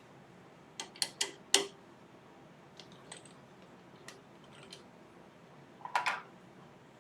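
Small handling sounds while the lathe is stopped: four sharp clicks and knocks in the first two seconds, a few faint ticks, then a short scraping rustle about six seconds in.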